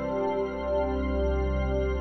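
Background music: slow, ambient instrumental with sustained, effect-laden guitar or keyboard notes.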